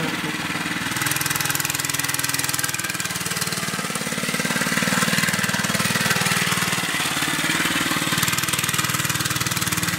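Small gasoline mini bike engine running steadily under two young riders. Its pitch rises about a second in, then drifts up and down as the throttle changes.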